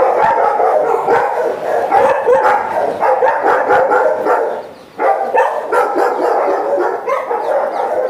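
Several kennelled dogs barking and howling over one another, with a brief lull just before five seconds in.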